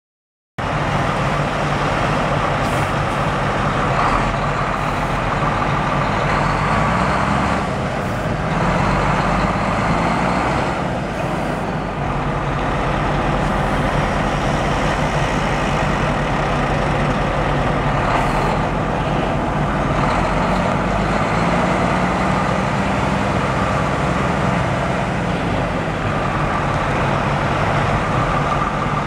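A Cummins M11 10.8 L inline-six diesel in a 1998 International 9100 semi tractor idling steadily, cutting in abruptly about half a second in.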